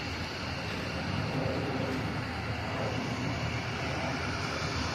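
Amtrak passenger train led by a Siemens Charger diesel locomotive, approaching with a steady low rumble.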